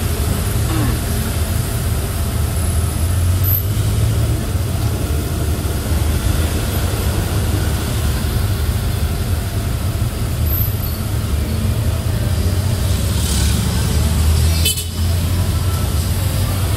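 Steady low engine and road rumble heard from inside a moving vehicle, with a short sharp knock about fifteen seconds in.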